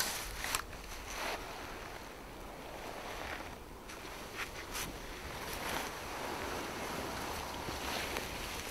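Wind blowing over the microphone on an open hillside, a steady rushing noise, with a few brief rustles and light clicks.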